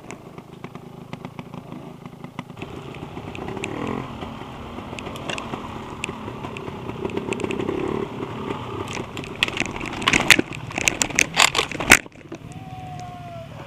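Dirt bike engine running and revving as it labours up a steep, loose slope, then a run of loud cracking, clattering and scraping as the bike goes over into the brush and dirt. The noise cuts off suddenly about twelve seconds in.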